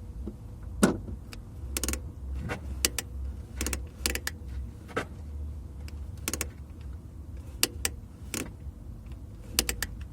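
Lada (VAZ) clutch pedal being worked repeatedly, giving a series of short, sharp creaks at uneven intervals over a steady low rumble. The creak comes from the clutch cable's plastic end tip rubbing dry against the steel clutch release fork, and lubricating that contact point cures it.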